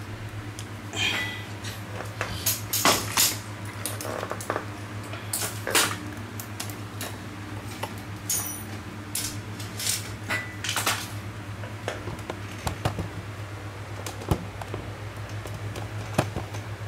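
Hard tools and metal objects being handled and set down on a table: scattered clicks, knocks and clatters over a steady low hum.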